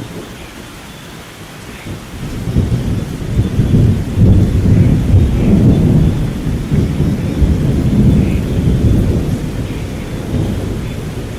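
Steady rain with a long peal of thunder: a deep rumble builds from about two seconds in, peaks in the middle and slowly dies away.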